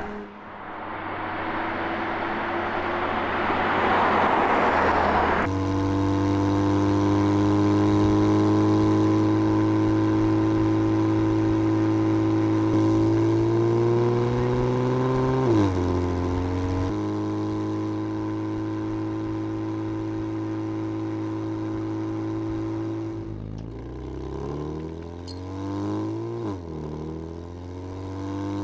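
Porsche Panamera 4 E-Hybrid's twin-turbo V6 pulling under load as the car drives, after a few seconds of rushing road and wind noise. The engine note climbs and drops at an upshift about halfway through, then climbs and shifts again near the end.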